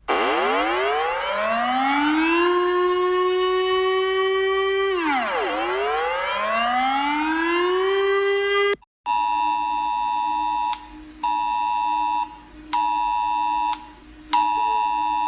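Emergency alert alarm audio. A warning siren rises in pitch and holds, dips about five seconds in, then rises and holds again. After a brief cut about nine seconds in, a harsh multi-tone alert tone sounds in long beeps with short gaps.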